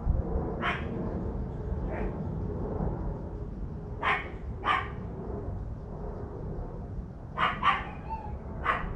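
A dog barking about seven times, in short sharp barks that come singly and in pairs, over a steady low background noise.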